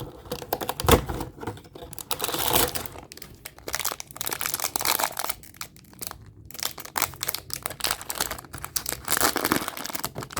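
Packaging crinkling and rustling, with some tearing, as a fortune cookie is unwrapped.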